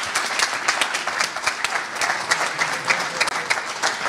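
Audience applauding: dense, steady clapping of many hands.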